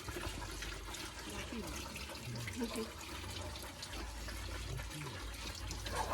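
Water running steadily from a tap or hose during a puppy's bath, with faint voices in the background.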